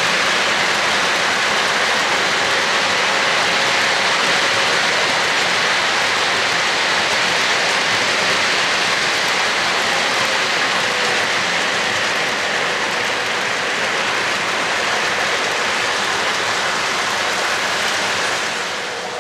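Wheels of an O-gauge model freight train rolling steadily over three-rail track, a continuous rain-like rattle that eases slightly near the end as the last cars pass.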